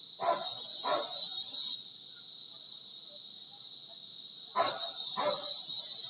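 Cicadas (kuliglig) droning in a steady, high-pitched chorus. A dog barks twice near the start and twice more near the end.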